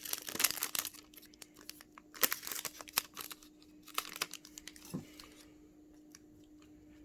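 Wrapper of a baseball card pack being torn open and crinkled: a dense crackling in the first second, then scattered crinkles and ticks that thin out after about five seconds, over a faint steady hum.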